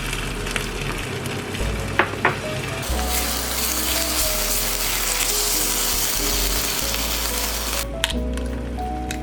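Food frying in a pan. A softer sizzle with a couple of utensil clicks gives way about three seconds in to a loud, bright sizzle, which cuts off abruptly near the end. Background music plays throughout.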